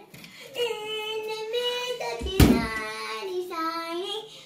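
A young boy singing a run of long held notes, with one loud thump about halfway through.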